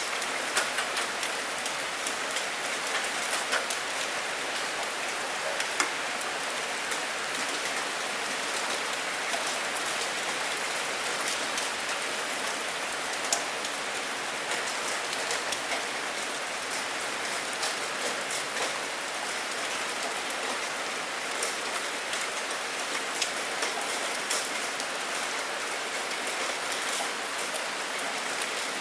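Steady rain falling, an even hiss with the sharp taps of individual drops scattered all through it.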